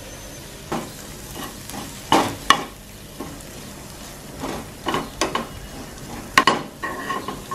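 Chopped onions and spice powders frying in a nonstick pan, with a steady faint sizzle under them. A metal spatula stirs them, scraping and clacking against the pan in irregular strokes, the loudest about two seconds in and again past six seconds.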